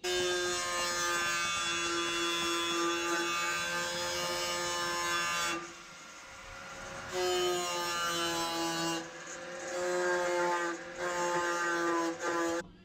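Small electric power tool's motor whining steadily, run in several bursts with short stops: one long run, then three shorter ones, its pitch shifting slightly between them.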